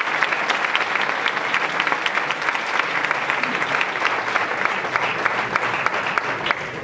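Audience applauding, a dense steady clapping that eases off a little near the end.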